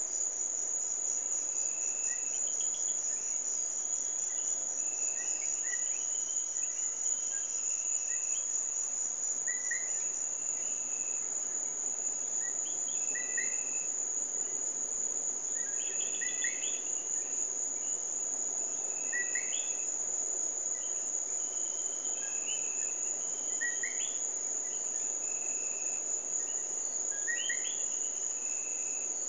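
Night chorus: a steady high-pitched insect trill, with short rising chirps of small tree frogs scattered through it.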